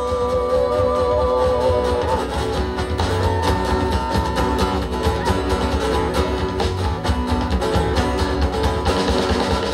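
Folk song played on strummed acoustic guitar, with a long held note that ends about two seconds in, giving way to the instrumental close of the verse.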